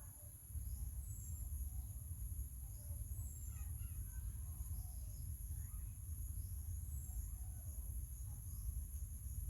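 Outdoor ambience: a steady low rumble under a constant high-pitched insect drone, with a short falling chirp about every two seconds and a few faint squeaks.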